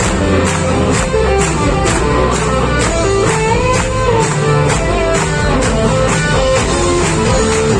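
Live rock band playing an instrumental passage: a guitar line over bass and a steady drum beat, with notes bent in pitch around the middle.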